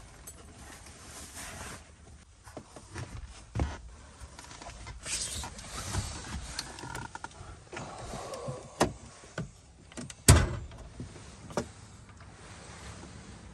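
Scattered clicks and knocks from objects being handled, with a louder knock about ten seconds in.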